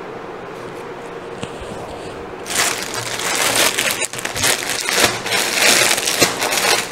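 Crinkling and rustling of a suit piece being unfolded and handled, starting about two and a half seconds in and going on busily after a steady low room hum.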